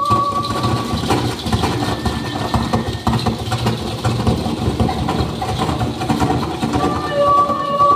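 Harsh noise music from a keyboard and effects-pedal rig: a loud, dense wall of rumbling distorted noise that cuts in suddenly. A steady high electronic tone comes back through it near the end.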